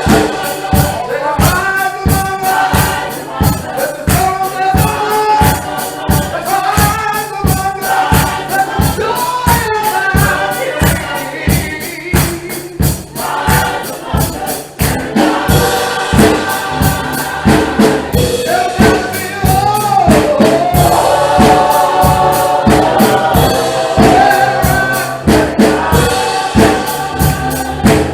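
Gospel music: a choir singing over a steady percussive beat of about two strokes a second.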